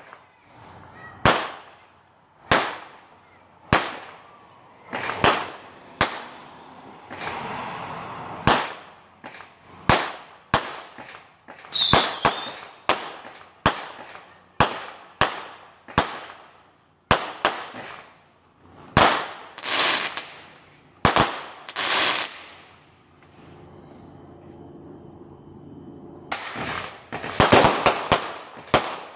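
Fireworks exploding in a steady series of sharp bangs, roughly one a second, each echoing off the surrounding houses. Near the end they come in a dense rapid burst of cracks.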